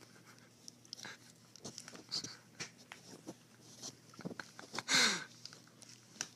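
Foil chip bag crinkling in small, irregular crackles as a cat pushes about with its head stuck inside it, with one louder rustle about five seconds in.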